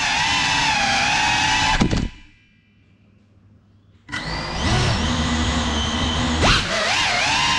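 FPV quadcopter's brushless motors whining, their pitch wavering with the throttle. About two seconds in the motors cut out and there is near silence for two seconds, then they spin back up to a steady idle while the drone sits on the floor, and near the end the pitch rises sharply as it throttles up.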